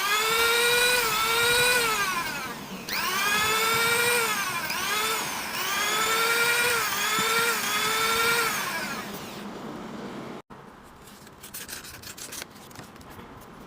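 Handheld power sanding tool whining against a workpiece, its pitch repeatedly dipping and rising again. It stops about nine and a half seconds in, followed by faint clicks and handling sounds.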